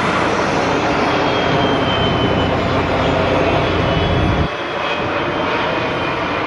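Turbofan jet engines of a Boeing C-17 Globemaster III and a KC-135 tanker flying over together in refueling formation: a loud, steady jet rumble with a faint high whine. The deepest part of the rumble drops off suddenly about four and a half seconds in.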